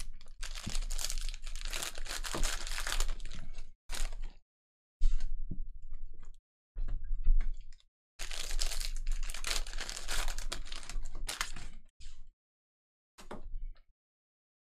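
Plastic trading-card pack wrappers crinkling and tearing as card packs are ripped open, in bursts that stop dead in between.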